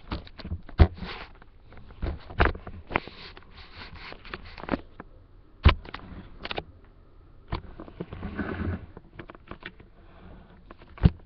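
Repeated sharp clicks and knocks of a small plastic Lego spinning top being handled and launched on a hard surface, with a short rushing noise a little past the middle. The top keeps failing to spin well.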